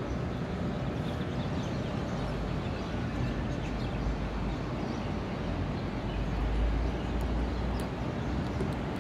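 Steady outdoor background noise with a low rumble, typical of wind on the microphone and distant city traffic; the rumble swells about two-thirds of the way through, and a few faint clicks come near the end.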